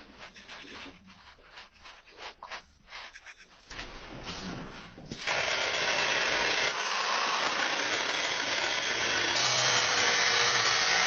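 Repeated scraping strokes on metal, then about five seconds in a power tool starts working the steel of an old saw blade and runs steadily with a loud, even hiss.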